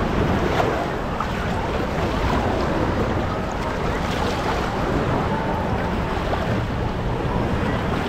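Wave-pool water sloshing and lapping close to the microphone, under a steady rumble of wind on the microphone.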